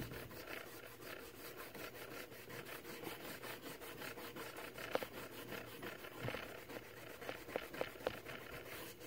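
A bar of stropping compound rubbed back and forth into a leather strop to load it: a faint, repeated scratchy rubbing, with a few light clicks in the middle.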